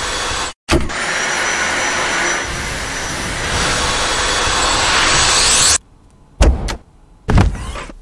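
Dyson V8 Animal cordless stick vacuum running, a steady rush of air with a faint high whine from the motor. The sound cuts out briefly about half a second in, drops away near six seconds, and comes back in two short bursts.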